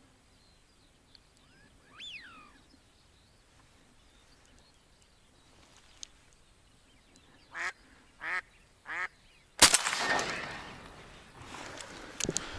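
A live decoy duck quacks three times, loud and evenly spaced, and about half a second after the third quack a single shotgun shot goes off, the loudest sound, with a long fading echo. A faint bird call glides up and down about two seconds in, and more commotion follows the shot near the end.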